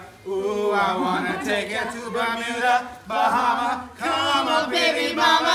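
Men's voices singing or chanting together without instruments, in phrases of about a second each with short breaks between them.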